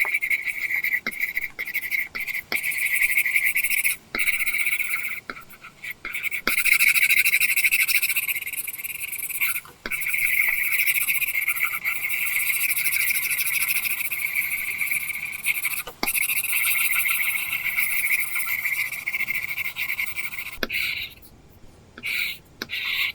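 Apple Pencil tip scratching across an iPad screen fitted with a paper-texture film, a dry pencil-on-paper scratching. It starts as short separate strokes, then runs on as long continuous back-and-forth strokes with only brief breaks, and pauses for a moment near the end.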